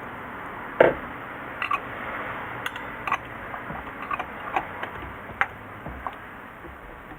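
Irregular clicks and knocks of hand tools and parts being handled during an engine oil change: one sharper knock about a second in, then a dozen lighter clicks over a steady hiss.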